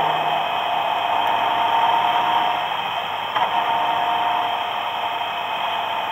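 Steady wind rush and engine drone from a motorcycle cruising along a road, picked up by a camera mounted on the bike, with one short click a little past halfway.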